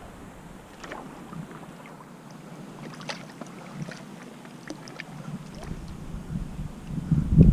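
Water sloshing and splashing at the stream's edge with scattered small clicks and taps, then a loud low buffet of wind on the microphone near the end.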